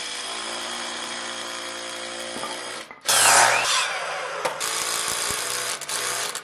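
Power tools working lumber: a motor runs steadily for about three seconds, then a Ryobi miter saw cuts through a wooden board, the loudest part, followed by a drill driving screws in several short runs.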